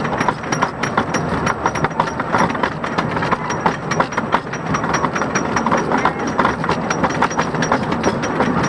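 Wooden roller coaster train being pulled up the chain lift hill: steady rapid clacking and rattling of the lift chain and anti-rollback.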